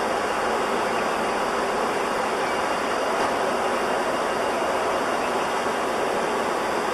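Steady rushing noise inside the flight deck of an Airbus A300-600R in flight during its descent.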